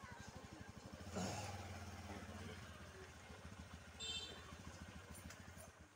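A small engine running steadily with a rapid, even putter; it cuts off abruptly near the end. A brief louder rush comes about a second in, and a short high-pitched call around four seconds in.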